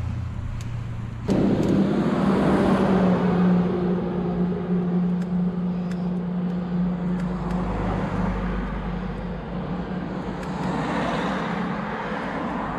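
Car traffic passing close by: engine hum and tyre noise that start suddenly about a second in and hold steady for several seconds, with another vehicle approaching near the end.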